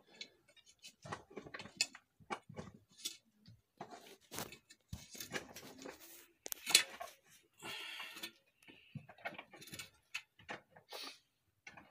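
Irregular scraping, clicking and knocking of dry soil and stones being dug and pushed aside by hand, with a few longer scrapes, the loudest a little past the middle.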